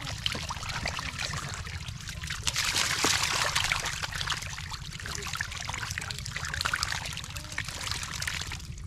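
Wet mud and water splattering, sloshing and dripping as a metal bowl scoops mud and stinging catfish from a drained pond bed and tips them into a bamboo basket, heaviest about three seconds in.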